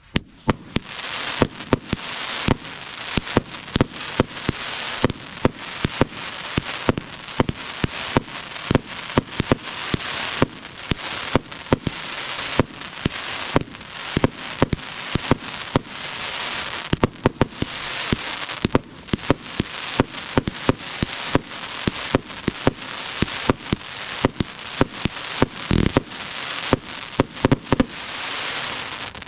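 Consumer fireworks firing without a break: a steady hiss thick with sharp pops and cracks, several a second, and a deeper boom near the end.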